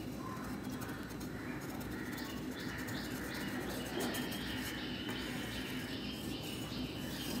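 Birds chirping faintly in the background over a quiet steady room noise.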